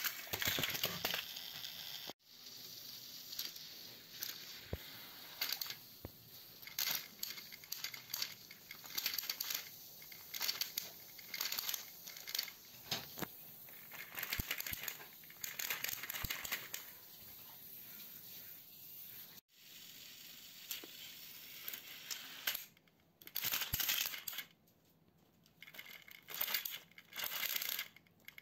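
Battery-powered plastic toy trains on plastic track, their gears and wheels clattering and rattling unevenly. The sound cuts off abruptly twice, about 2 seconds in and about two-thirds of the way through, and is quieter near the end.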